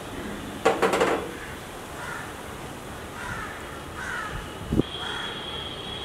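Wooden spoon clattering against a stainless steel mixing bowl while stirring flour into a thick masala paste, a quick run of knocks about a second in and a dull knock near the end. Short bird calls repeat in the background.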